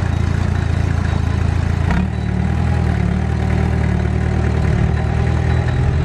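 Small crawler bulldozer's diesel engine running steadily, its note shifting about two seconds in.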